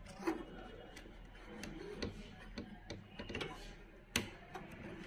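Light plastic clicks and taps as the ink supply tubes of an Epson L3210 printer are pressed into their guides on the print-head carriage, with a few scattered clicks and the sharpest one about four seconds in.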